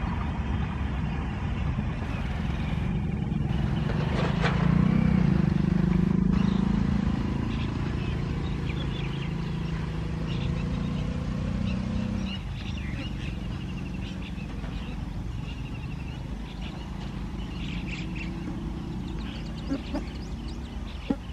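Express passenger train's coaches rumbling on the rails as the train moves away. The rumble is loudest about four to twelve seconds in, then fades. Birds chirp through the second half.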